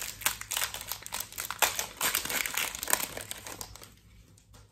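Foil wrapper of a Pokémon trading card booster pack crinkling and crackling as it is torn back and pulled off the cards, dense for about three and a half seconds and then dying away.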